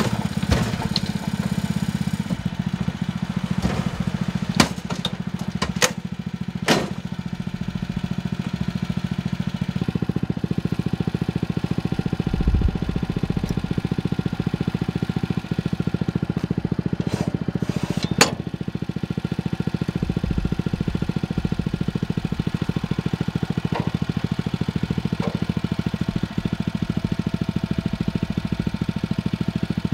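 Small engine of an Easi-Loader motorised barrow or micro dumper running steadily, with a few sharp knocks and clatters in the first seven seconds as the tipping gear and load work, and one more knock a little past the middle.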